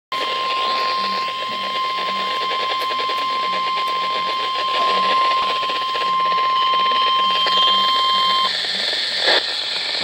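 Midland weather radio sounding the NOAA Weather Radio warning alarm tone, one steady tone through heavy radio static, which cuts off about eight and a half seconds in. The tone signals that a warning broadcast, here a tornado warning, follows. A click comes near the end.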